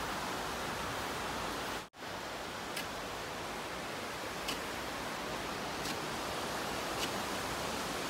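Small waves washing steadily onto a sandy beach, a continuous even rush, with faint light clicks about every second or so. The sound cuts out for an instant about two seconds in.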